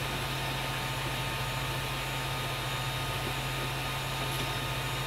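Model railway diesel shunter running slowly along the track, a steady low motor hum with a faint high whine.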